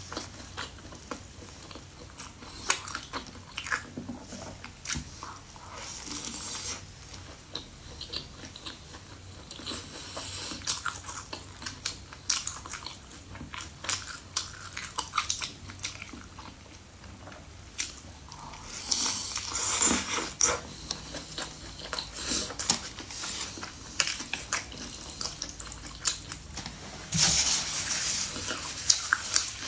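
A person eating noodle soup: chewing and biting with many small mouth clicks, and two longer noisy stretches, about two-thirds of the way in and near the end.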